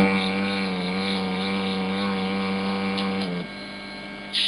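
A sleeping giant panda snoring: one long, steady droning purr held on a single pitch that stops abruptly about three seconds in.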